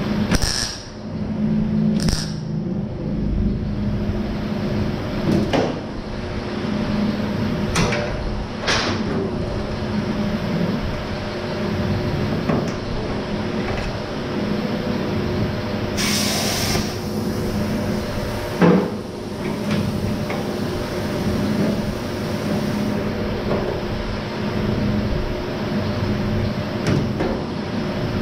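Scattered knocks and clunks of hand tools on car body sheet metal over a steady hum, with a short hiss about 16 seconds in.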